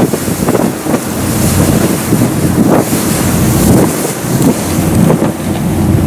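Wind buffeting the microphone on the open deck of a sightseeing boat under way, in gusts, over the boat engine's steady low drone and the rush of water along the hull.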